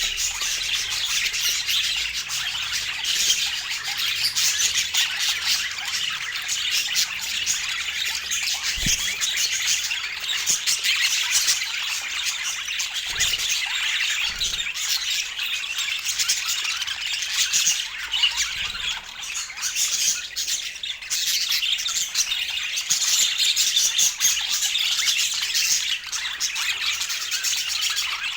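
A group of budgerigars chattering and squawking without a break, a dense mix of rapid high chirps and warbles.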